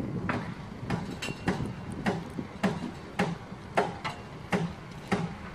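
Sharp metallic clicks at an even pace, a little under two a second, from work on the hitch at the front of a funfair ride's trailer.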